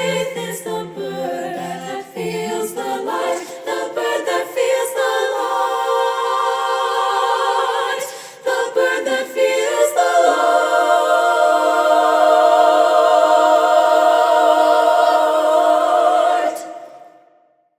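A cappella choir singing the closing phrase, its parts moving and then settling on one long held chord from about ten seconds in, which is released near the end and dies away within a second.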